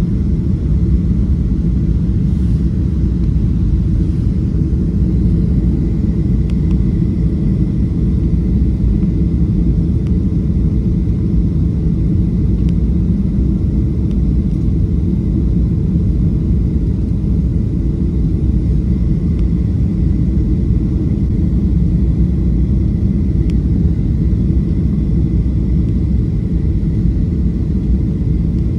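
Steady low roar inside the cabin of a Boeing 737-500 on final approach, its CFM56-3 engines and the airflow over the wing heard from a window seat, with a faint steady high whine over it.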